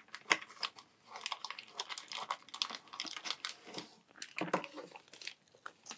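Thin plastic packaging bag crinkling and rustling as hands lift a bagged camera accessory out of its cardboard box, with irregular small crackles and clicks.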